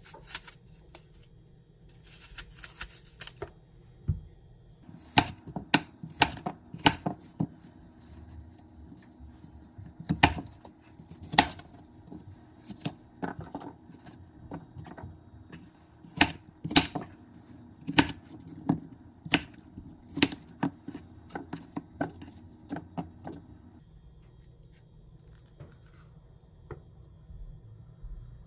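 Knife cutting on a cutting board, irregular sharp knocks and clicks, some in quick runs of three or four.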